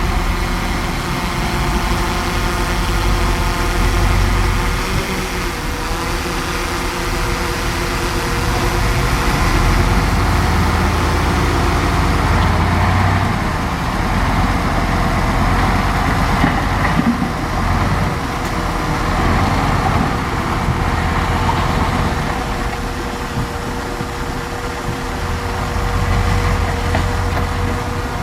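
Large bulldozer's diesel engine running steadily as the machine works, its pitch wavering slightly.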